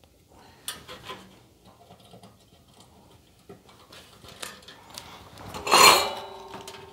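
Small clicks and rustles of hands working a length of hookup wire. About six seconds in comes a louder metallic clatter with a steady ring hanging after it, as tools are picked up from the bench.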